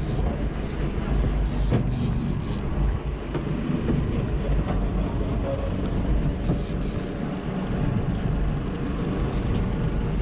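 Sport-fishing boat's engine running with a steady low rumble, with short bursts of hiss about two seconds in and again about seven seconds in.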